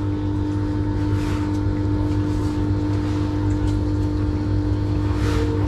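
Steady machine hum at a constant low pitch, with a few faint short rustles on top.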